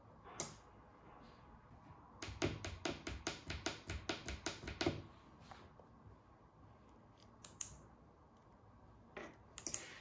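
Small plastic clicks from pressing the buttons of a handheld RF key-fob remote paired to a small relay receiver module, with the relay itself switching. A single click near the start, then a quick run of about fourteen clicks, about five a second, lasting nearly three seconds, then a few scattered clicks near the end.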